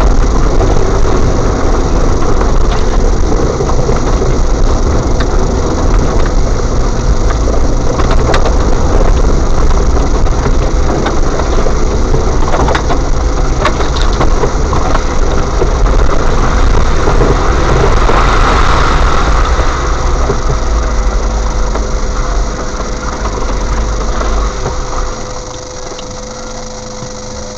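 Engine and body rattles heard from inside an off-road vehicle's cabin as it drives slowly along a rough, rutted track, with occasional sharp knocks from bumps. The noise falls off markedly about 25 seconds in.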